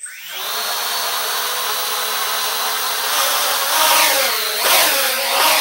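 Small home-built quadcopter's four motors and propellers spinning up from standstill into a loud whine. From about three seconds in, the pitch swings up and down as the motor speeds change.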